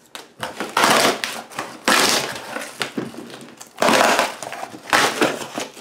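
Cardboard shipping box being ripped open by hand, in several loud tearing rips.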